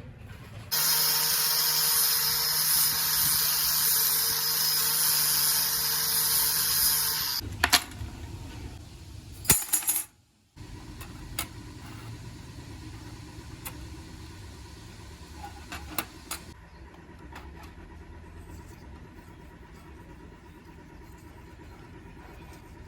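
An electric power tool runs steadily for about seven seconds and then stops. A few sharp metallic clicks follow, then only faint scattered clicks of handling.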